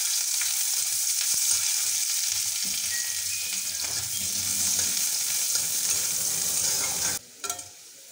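Chopped onion sizzling in hot mustard oil in an aluminium kadai, stirred and scraped with a flat metal spatula. The sizzle cuts off suddenly about seven seconds in.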